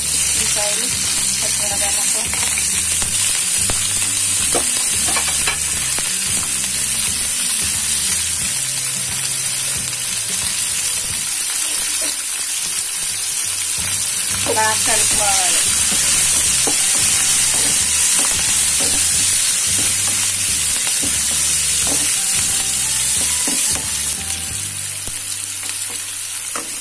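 Sliced onions, green chillies and ginger frying in hot oil with a mustard-seed and dal tempering in a pan: a steady sizzle, stirred with a wooden spatula.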